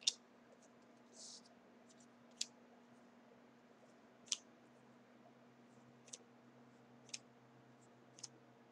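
Trading cards being handled and flipped through one by one: a few short, sharp clicks a second or two apart as card edges snap against the stack, with a soft slide of card on card about a second in.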